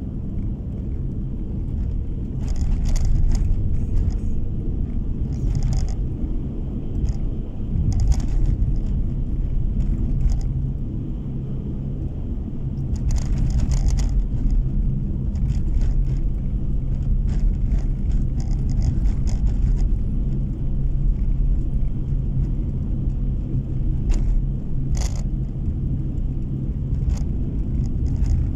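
Car driving on a snow-packed road, heard from inside the cabin: a steady low rumble of tyres and engine, with short crackly scrapes several times, loudest at about 3, 6, 8, 14 and 25 seconds in.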